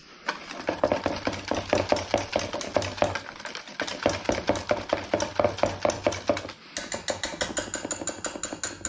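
Wire whisk beating a thick yogurt-and-mayonnaise dressing in a stainless steel bowl, the wires clicking against the metal in a fast, even rhythm.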